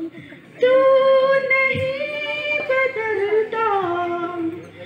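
A woman singing in long held notes. One sung phrase starts about half a second in and breaks off shortly before the end.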